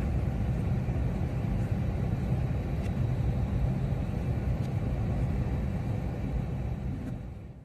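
Steady low rumble of outdoor ambient noise, with no distinct events, fading out near the end.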